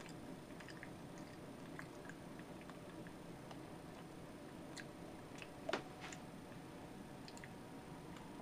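A macaque chewing, with soft scattered clicks and one sharper click about five and a half seconds in.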